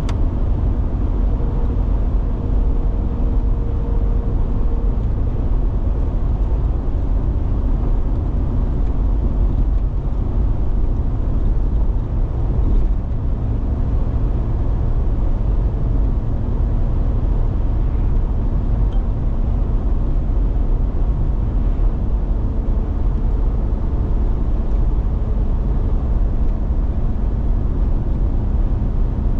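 Steady low road rumble of a car being driven at speed, heard from inside: tyre and engine noise that stays even throughout.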